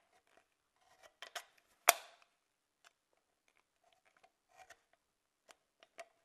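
Thin aluminium drink-can metal being cut into slits by hand: a scatter of faint, sharp snips and clicks, the loudest about two seconds in.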